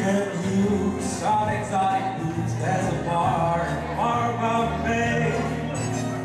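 A man singing a song into a handheld microphone, amplified through a PA system over musical accompaniment.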